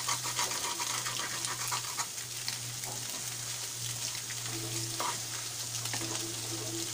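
Egg, onion and finely chopped carrot sizzling in oil in a non-stick pan while a wooden spatula stirs and scrapes them, with quick scraping strokes densest in the first two seconds. A steady low hum runs underneath.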